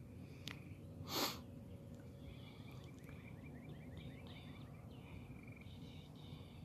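A person sniffing once, sharply and close to the microphone, about a second in, over a low outdoor background. From about two seconds on there is a run of faint, quick chirping calls in the background, repeated several times a second.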